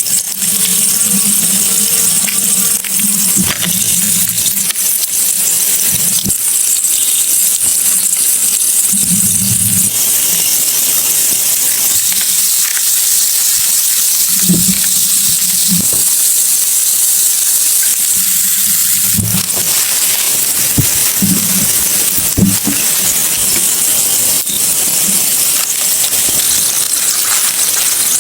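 Stream water running steadily with an even rushing hiss, with a few brief low splashes or knocks now and then.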